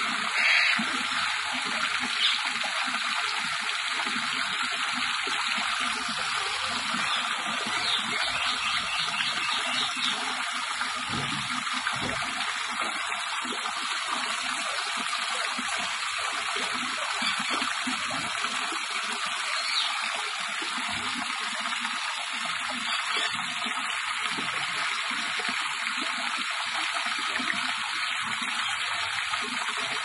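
Water running and pouring steadily in an even rush, with a few faint brief high calls over it.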